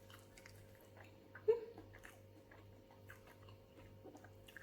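A person chewing roasted fish close to the microphone, with faint wet mouth clicks and one short louder mouth sound about a second and a half in.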